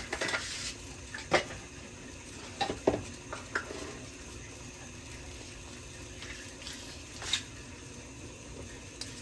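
Curry masala sizzling and simmering in a stainless steel stockpot, a steady gentle hiss, with a few light clicks and knocks scattered through it.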